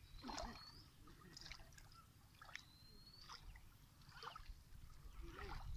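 Faint, irregular splashing and trickling of shallow pond water as a bundle of straw is pushed through it.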